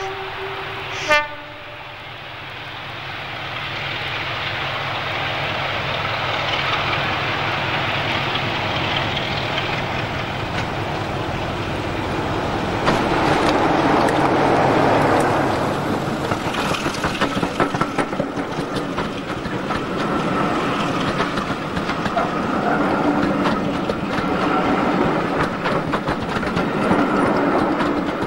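British Rail Class 33 diesel locomotive sounding its horn in two short toots at the start, then running under power as it pulls away and passes close by, loudest about halfway. Its coaches follow, rolling past with a rapid clicking of wheels over the rail joints.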